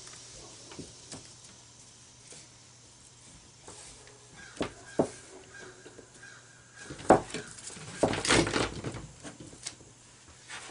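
Scattered clinks and knocks of metal parts and copper wire being handled, with a busier rattle of knocks about eight seconds in.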